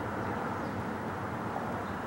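Hawaiian Airlines Airbus A330's twin Rolls-Royce Trent 700 turbofans heard from the ground as a steady jet rumble, the airliner flying away on final approach.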